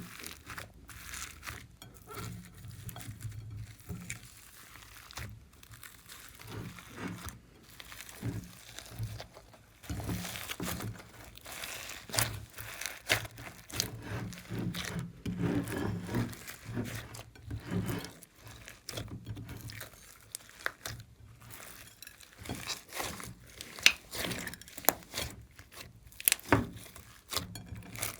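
Glossy slime being mixed and worked, giving a dense, irregular run of sticky clicks and crackles, some sharper pops near the end.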